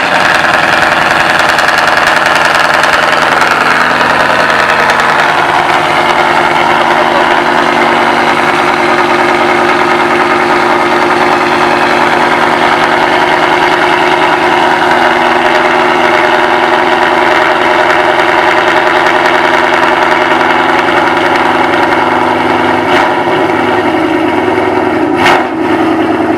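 2017 Ford Mustang GT's 5.0L Coyote V8 at a steady cold-start fast idle, very loud through newly fitted stainless long tube headers.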